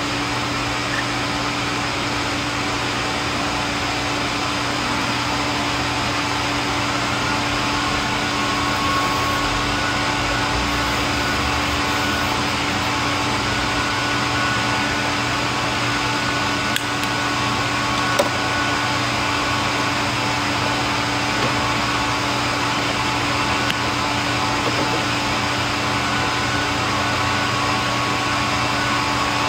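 Miniature hot-air Stirling engine model with a brass flywheel and glass cylinder running steadily on its spirit-lamp flame, giving an even mechanical whirr with a constant hum. Two small clicks come about halfway through.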